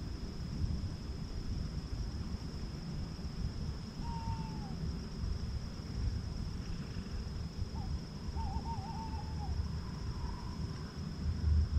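An owl hooting twice. The first is one long hoot that drops at the end. The second is a short note followed by a longer, wavering hoot. Both sound over a steady low rumble.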